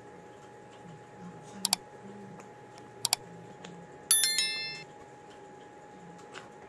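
Two sharp double mouse clicks about a second and a half apart, then a short, bright bell chime with several ringing tones that fade over about half a second: the sound effects of an animated subscribe-button-and-notification-bell overlay.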